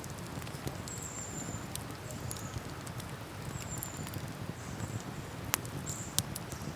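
Wood campfire crackling with scattered small pops, over a low steady rush. Two sharper pops land near the end.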